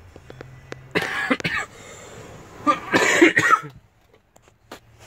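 A man coughing twice: once about a second in, and again, louder and longer, around three seconds in.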